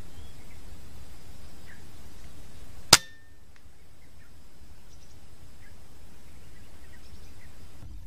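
A single air rifle shot about three seconds in, one short sharp report.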